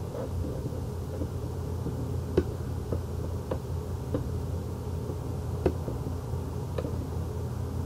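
Steady low background hum with about five faint, sharp clicks spread through it, typical of a computer mouse being clicked while working in software.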